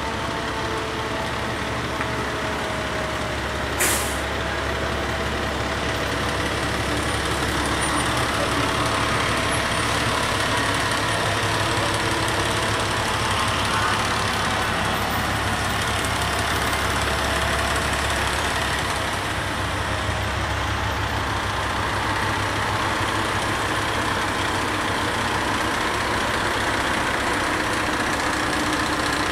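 Fire engine's diesel engine running with a steady low drone as it rolls slowly past, with a brief hiss of air brakes about four seconds in.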